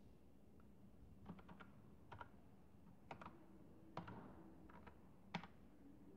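Faint, irregular keystrokes on a computer keyboard: single taps and short clusters of taps with pauses between them, as a short line of code is typed.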